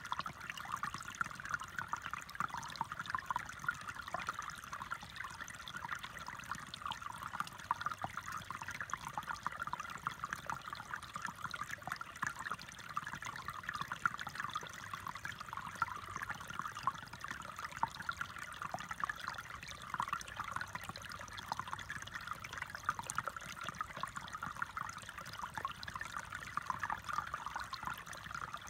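Shallow, rocky brook trickling and babbling over stones in a steady, even flow.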